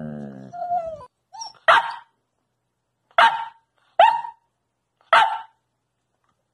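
A dog's short, low whining grumble, then a puppy barking for a treat: a small yip followed by four sharp barks about a second apart.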